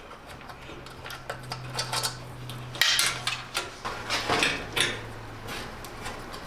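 Light metallic clinks and knocks as sheet-metal dryer parts are handled and lifted out by hand, with a sharper knock about three seconds in.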